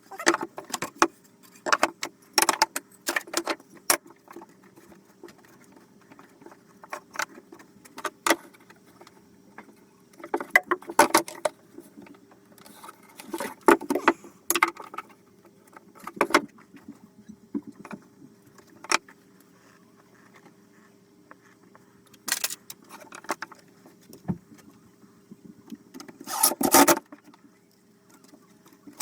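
Intermittent clinks, knocks and rattles of hand work on a wooden shelf build, with tools and small metal parts being handled, in clusters with pauses between. A steady low hum runs underneath.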